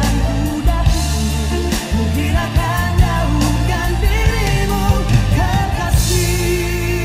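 A Malay-language pop song: a male singer's voice over a backing band with drum hits, holding one long note near the end.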